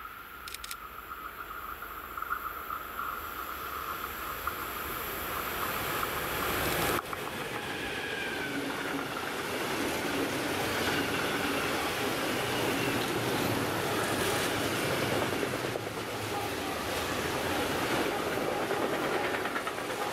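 An electric freight train of tank wagons approaching and passing close by. At first there is a steady whine. From about seven seconds in, the rolling noise of the long line of wagons' wheels on the rails grows louder and carries on.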